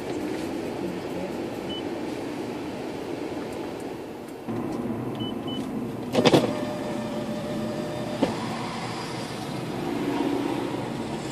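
Steady engine and road noise heard inside a car's cabin while driving in town traffic, with a brief loud thump about six seconds in.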